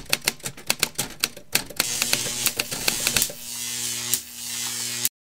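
Typewriter key-click sound effect, about six clicks a second, as a title is typed out letter by letter. From about two seconds in the clicks thin out over a hiss, and a steady low electronic drone comes in under them. It cuts off abruptly near the end.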